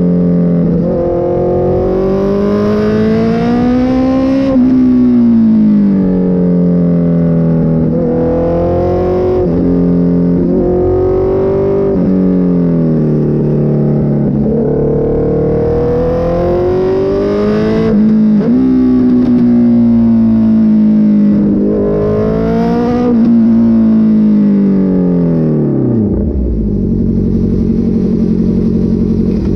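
Honda CB650 inline-four motorcycle engine running under varying throttle, its pitch rising and falling again and again with several sudden drops. About 26 seconds in, the revs fall away and it settles into a low, steady idle.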